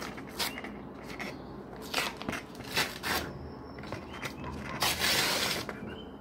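A dark mailing envelope being handled and opened by hand: paper crinkling and rustling with several sharp crackles, and a longer, louder rustle about five seconds in.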